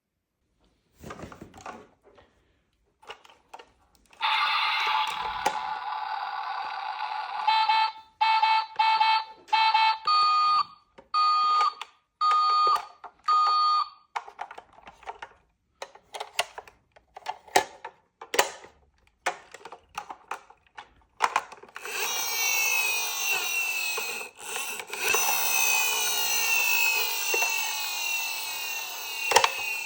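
Battery-powered toy emergency vehicles playing their electronic siren and alarm sounds: first a buzzy electronic tone, then a run of short on-off beeps, then a fast warbling siren in the last third. Clicks and knocks of plastic toys being handled come in between.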